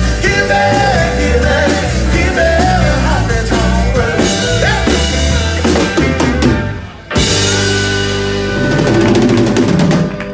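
Live rock band with drum kit, bass, keyboard and guitars playing the closing bars of a song. The music dips briefly about seven seconds in, then the band comes back in on a held chord with the drums.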